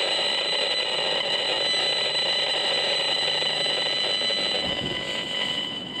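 Steady electronic tone from a Gigahertz Solutions HFE35C RF analyzer's audio output, the meter sounding out a strong pulsed microwave signal; the tone weakens slightly near the end.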